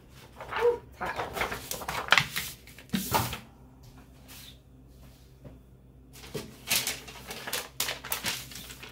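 Paper and fabric handling: butcher paper and a Teflon sheet rustling and crinkling as they are lifted off, then the pressed bodysuit and its transfer paper pulled off the heat press, in irregular bursts with a quiet spell in the middle.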